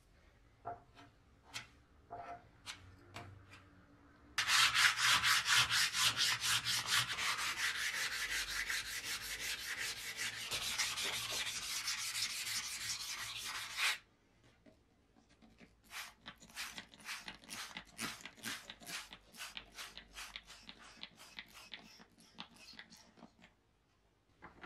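Sandpaper rubbed by hand over wet body filler on a steel lawn mower deck: rapid back-and-forth sanding strokes, several a second. Faint scrapes for the first few seconds, then a loud spell of steady strokes, a short pause, and lighter strokes again.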